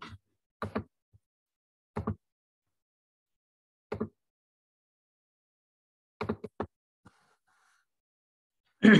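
Short knocks and bumps, one every second or two, with dead silence between; three come in quick succession about two-thirds of the way through, and a louder, longer burst comes right at the end.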